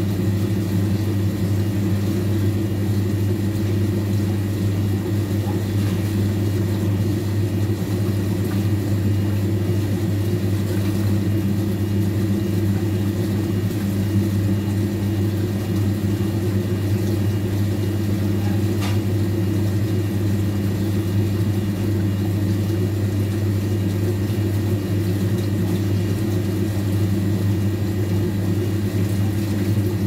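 Old electric washing machine running, its motor giving a steady low hum that does not change.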